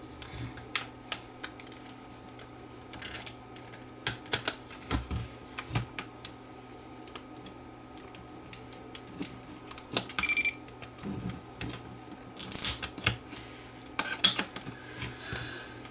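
Irregular small clicks, taps and light rattles of screws, a screwdriver and the plastic case of a portable cassette recorder being handled during reassembly, with a short high-pitched squeak about ten seconds in.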